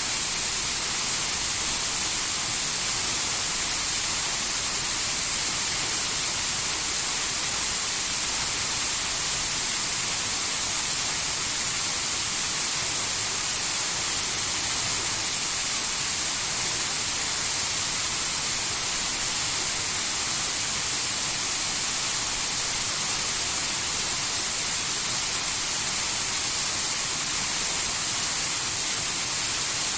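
Waterfall: water falling and rushing in a steady, unbroken hiss, strongest in the high range.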